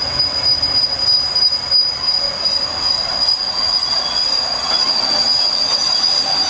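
Train running through a curve: a steady, high-pitched wheel squeal over the rumble of the wheels on the rails.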